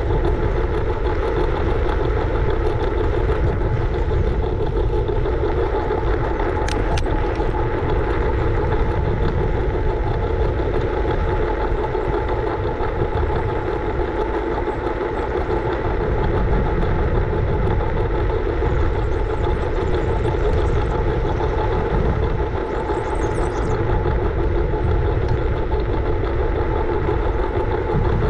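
Scooter riding along: a steady hum from its wheels and drive, with low wind rumble on the microphone. There is a short sharp click about seven seconds in.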